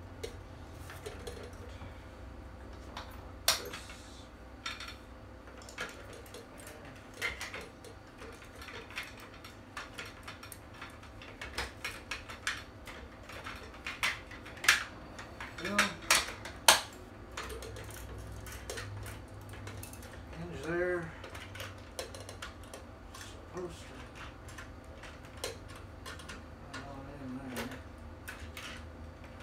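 Irregular clicks, knocks and clatter of plastic and metal parts and small hand tools being handled while a replica Smart Gun is worked on, with a few louder knocks in the middle.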